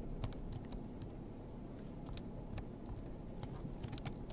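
Low, steady rumble inside a car cabin, with a scattering of light, irregular clicks and ticks, several bunched together near the end.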